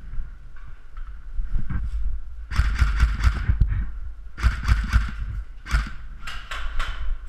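Quick footsteps on a hard floor with gear rattling, in several short runs of knocks and thuds from about two and a half seconds in.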